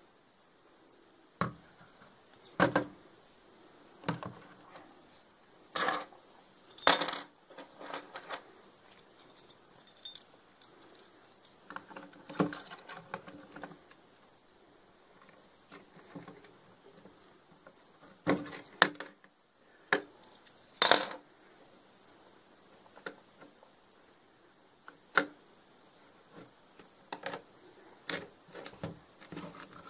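Hard plastic casing and hinged lid of a Sony D-EJ106CK portable CD player being handled, giving irregular clicks, knocks and clatters with short pauses between them.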